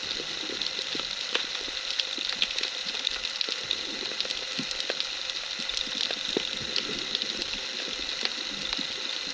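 Underwater ambience heard through a submerged camera: a steady hiss full of fine, irregular crackling clicks.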